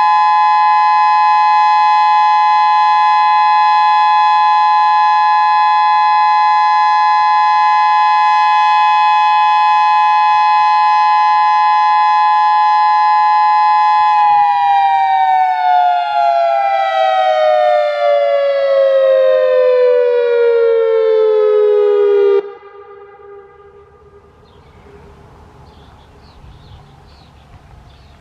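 Federal Signal Modulator 6024B electronic siren, a 24-driver speaker array, sounding its steady Alert tone, a chord of two close pitches with many overtones. About 14 seconds in it winds down in a smooth falling glide, then cuts off suddenly about 22 seconds in.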